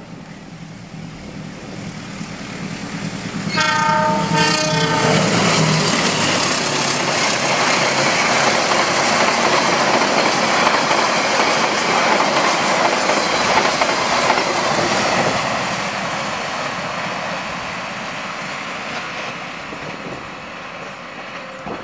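A diesel locomotive-hauled passenger train sounds a horn blast lasting under two seconds about three and a half seconds in, then runs past close by with loud, steady noise of wheels on rails that fades slowly as it moves away.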